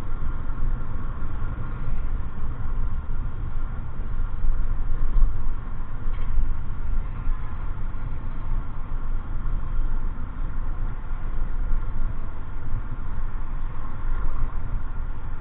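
Steady low rumble of a motor vehicle engine running, as at idle.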